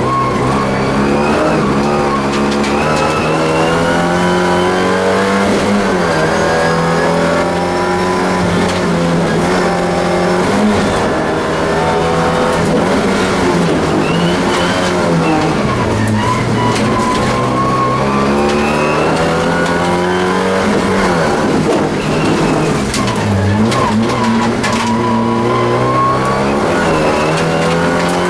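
Alfa Romeo 75 race car's engine heard from inside the cabin under hard driving, its pitch rising and falling again and again as it is revved out and shifted through the gears, with a couple of sharp drops in revs for braking or downshifts.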